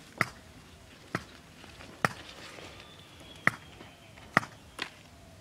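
Sharp snaps, about six at uneven intervals, of yardlong bean pods being snapped off their stems by hand.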